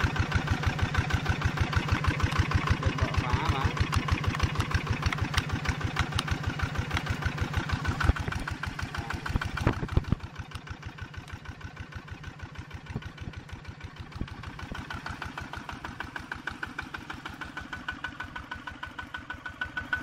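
Single-cylinder diesel engine of a small homemade tractor running with an even, rapid beat of firing pulses. A few sharp knocks come near the middle, and then the engine sounds much quieter while keeping the same beat.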